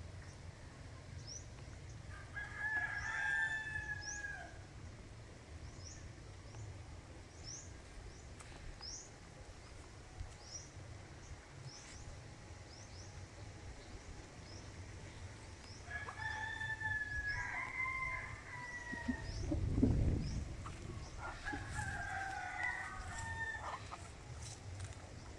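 Roosters crowing, three crows spread through the stretch, with a short high chirp repeating about once a second in the first half. A brief low rumble, like a gust on the microphone, is the loudest moment about two-thirds of the way in.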